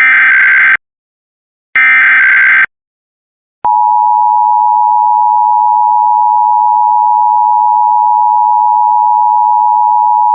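Emergency Alert System header: the last of the SAME data bursts, harsh buzzing blasts under a second long with about a second's gap between them. About three and a half seconds in, the loud, steady attention tone begins. Together they open an EAS test broadcast.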